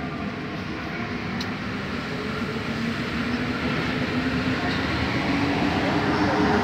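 Rubber-tyred Santiago Metro Line 5 train running through a tunnel, heard from inside the car; the running noise grows steadily louder.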